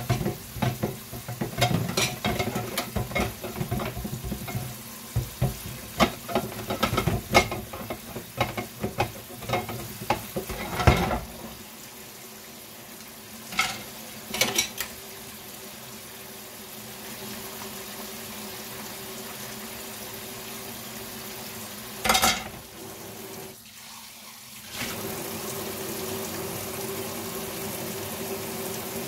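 Kitchen cooking sounds: a utensil stirring and knocking against a pan in quick, irregular clatters over a sizzle for the first ten seconds or so. Then a steady sizzle with a few single knocks follows, and near the end a louder, steady rush like running water or a boiling pot sets in.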